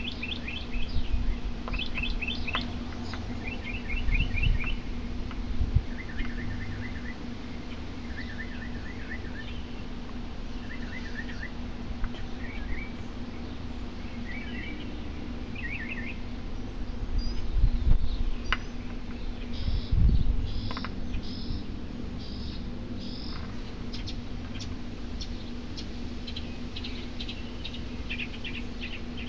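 Small birds chirping in quick runs of short high notes, repeated every second or two, over a steady low hum, with a few brief low rumbles.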